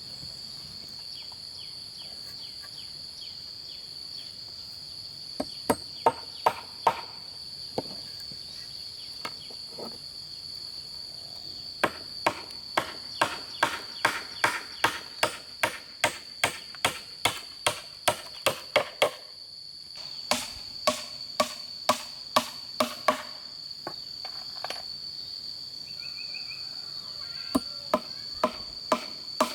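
Runs of sharp blows, about two a second, from a hand tool striking bamboo during building work, starting about five seconds in and coming in several bursts with short pauses between. Insects drone steadily at a high pitch throughout.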